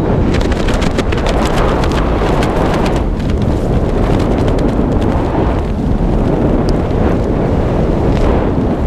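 Wind buffeting the body-worn camera's microphone during a parachute canopy descent: a loud, steady rumble that swells and eases in gusts, with brief crackling flutters in the first three seconds.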